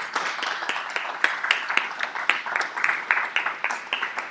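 Small audience applauding after a poetry reading, with many individual hand claps heard distinctly.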